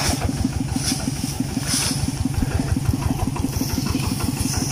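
Small single-cylinder engine running steadily at a low speed, with an even chugging of about eight beats a second.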